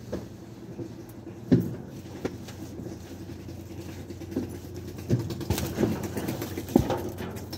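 Heavy cardboard cargo boxes being shifted and set down on a truck's cargo bed: a few dull thuds and scuffs, the loudest about a second and a half in and again near the end, over a steady low hum.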